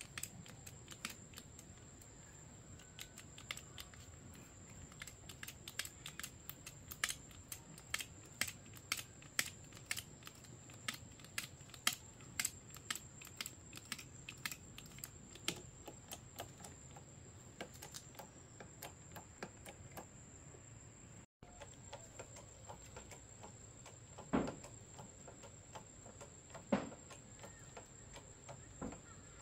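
Hand-pumped hydraulic bottle jack being worked with its lever bar to lift a timber house beam: a run of sharp metallic clicks, about one or two a second. Later, a couple of louder single knocks.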